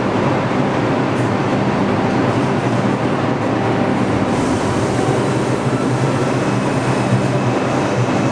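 NYC Subway R142A train running at the station, a steady loud rail noise with a low electric-motor hum.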